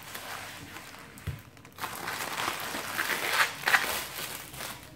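Plastic bubble-wrap packaging crinkling and rustling under hands as it is handled and opened, with a short lull about a second and a half in and loudest around three and a half seconds in.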